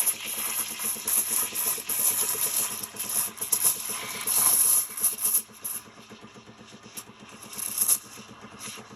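Espresso machine steam wand hissing over the machine's buzz. The hiss is loud at first and drops away about five seconds in, then flares again briefly near the end.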